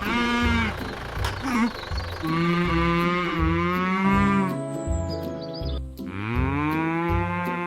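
Cow mooing: a short call, then two long, drawn-out moos, over background music with a steady low beat.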